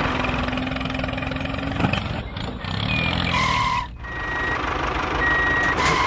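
Vehicle engine running, with a reversing alarm giving a few short steady beeps in the second half as the vehicle backs up.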